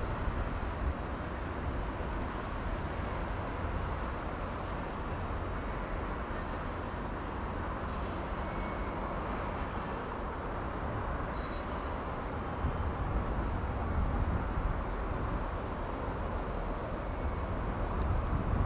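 Steady outdoor background noise with a low rumble and no distinct event.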